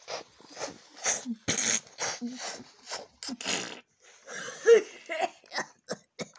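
A child voicing a steam train with the mouth: a run of breathy chuffs about two a second, then a hooting whistle call that rises and falls after about four and a half seconds.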